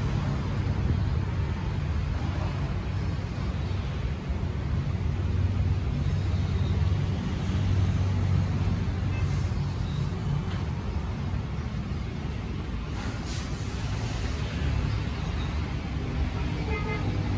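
A machine running with a steady low drone and a constant hiss over it.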